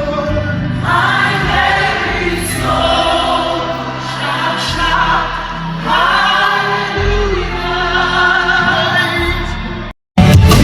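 Live gospel worship music: a choir singing long, held phrases over instrumental accompaniment. Near the end the sound cuts out for a moment and comes back louder.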